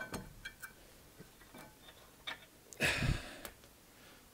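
A fine-toothed ratchet clicking in scattered ticks as the caliper bracket bolt is undone. About three seconds in comes a louder metallic clunk and scrape as the rear brake caliper bracket comes away.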